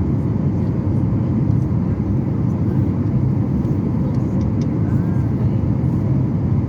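Steady cabin noise inside a Boeing 737 airliner: an even low rumble of the engines and rushing air, with faint steady tones above it.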